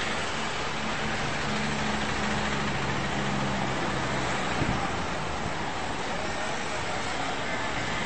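Roadside traffic noise: a steady hiss with a low engine hum that stops a little past halfway, around which there is one brief knock.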